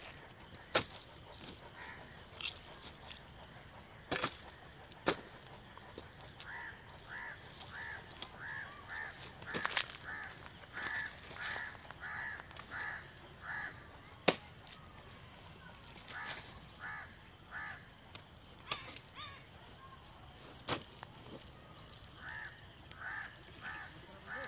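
A hand hoe strikes wet soil with a few sharp knocks spread through, as earth is scraped up into a field bund. A bird calls in runs of quick repeated notes, about two a second, over a steady high whine.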